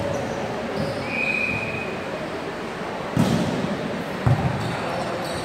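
Volleyball being hit by hand in a large, echoing gym: a loud smack about three seconds in and a second sharp hit about a second later, over players' voices.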